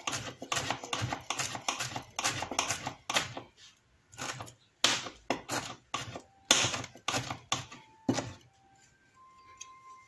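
Chef's knife rapidly chopping fresh cilantro, a fast, uneven run of sharp knocks of the blade striking the surface beneath, stopping about eight seconds in.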